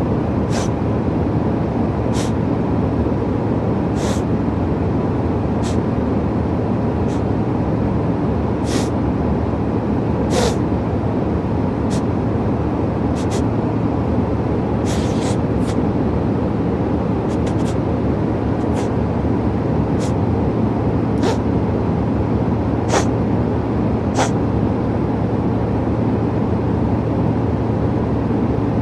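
Steady drone of an airliner cabin, with a person sniffling in short sharp sniffs about every second and a half that stop near the end.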